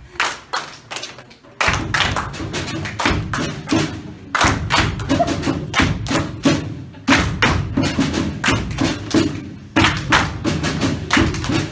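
A small group clapping their hands in rhythm. From about two seconds in, low thumps sound under the claps.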